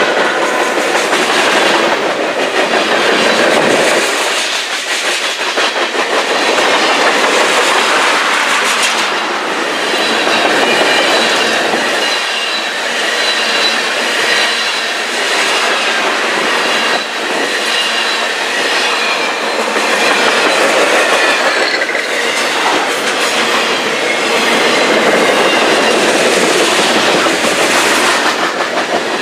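Freight cars rolling past at close range: a steady rush of steel wheels on rail with clickety-clack over the joints. A thin, high wheel squeal rings through the middle stretch.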